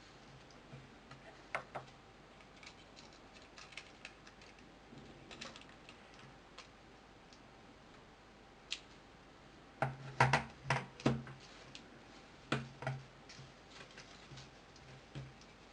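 Light clicks and taps of a smartphone and small repair tools being handled, sparse at first, then a quick run of louder clicks about ten seconds in.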